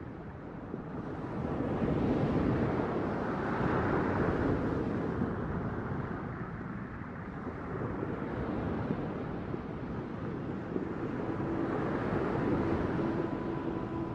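Ocean surf ambience: a hiss of waves swelling and falling back every few seconds. Faint held tones come in near the end.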